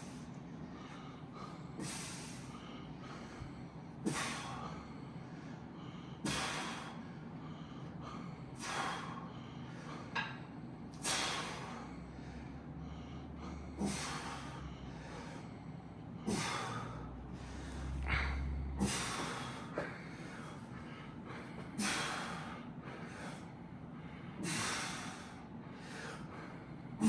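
A man's sharp, forceful exhales, one with each rep of a set of dumbbell rows, in a steady rhythm of about one every two and a half seconds.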